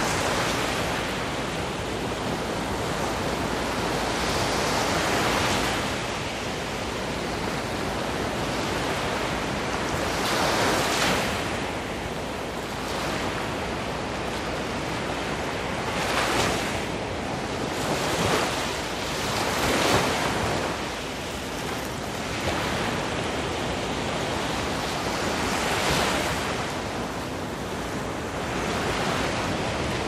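Black Sea surf: small waves breaking and washing up a sandy shore every few seconds over the steady rush of the sea.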